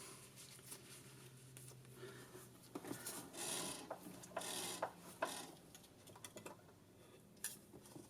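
Light metallic clinks and scrapes of small hand tools working on the engine's valve rockers, with a few short scraping strokes in the middle.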